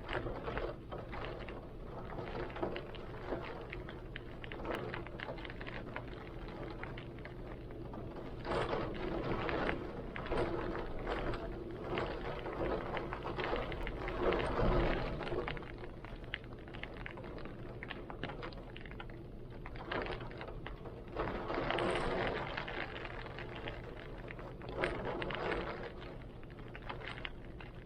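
Heavy rain pattering steadily while strong wind gusts swell and fade several times, with a faint steady low hum underneath.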